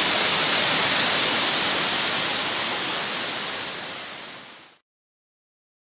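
Steady rushing roar of a tall waterfall pouring into its plunge pool, heard close up. It fades out about four seconds in and gives way to silence.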